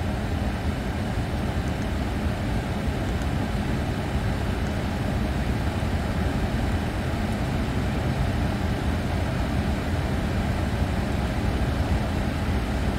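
Steady low rumble and hiss of a Boeing 747 flight deck's background noise.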